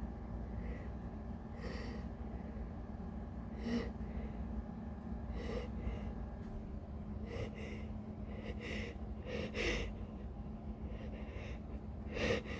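A woman's sharp gasping breaths as a sneeze builds up, repeated every second or two, the last one near the end the loudest.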